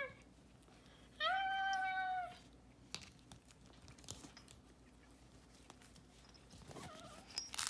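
A Yorkshire Terrier puppy whining: one high, steady cry about a second long, then a fainter whimper near the end, with a few faint clicks between.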